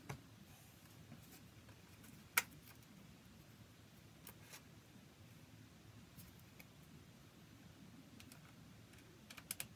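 Quiet handling of a Kydex holster and belt-clip hardware as a screw and nut are fitted: one sharp click about two and a half seconds in, a few small clicks a couple of seconds later, and a quick cluster of clicks near the end.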